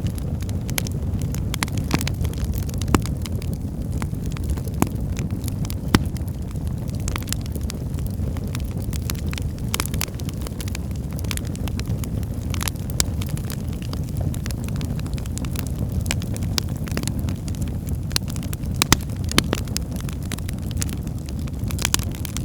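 Firewood burning in a fireplace: a steady low rumble of flame with frequent crackles and pops, and a few louder snaps.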